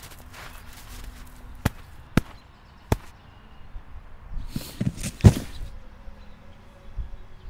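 Snow being packed by hand: sharp slaps and thumps, three single knocks about half a second apart, then a louder run of thumps about five seconds in.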